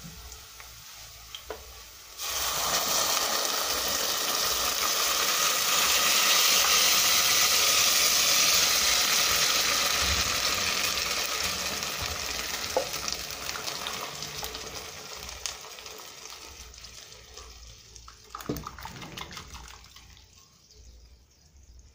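Blended tomato and chile sauce poured into a pot of hot oil with softened onion. A loud sizzle sets in suddenly about two seconds in, holds strongly for several seconds, then gradually dies down as the sauce stops hissing. Before it there is only the light sizzle of the onion frying.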